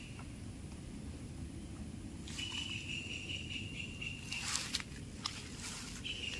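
Outdoor rural ambience with a steady low background hiss and a high-pitched insect trill that holds for about two seconds in the middle. A few short clicks or rustles follow near the end.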